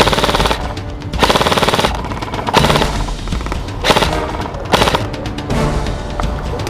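Airsoft rifles firing bursts of rapid fire as covering fire: two longer bursts in the first two seconds, then shorter bursts about two and a half, four and five seconds in.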